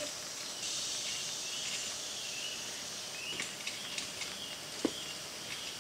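Steady high-pitched insect chorus in woodland, with a few light clicks and knocks, the sharpest about five seconds in.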